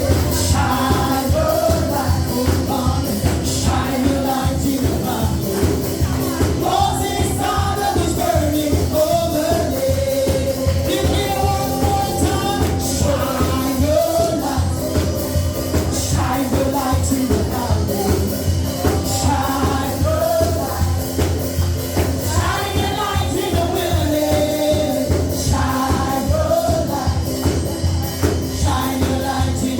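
Gospel worship music: voices singing over a band with a steady, driving beat and heavy bass.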